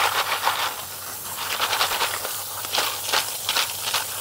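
Water hissing from a hose spray nozzle onto snails and shellfish, washing them clean; the spray weakens briefly about a second in and again around two seconds in.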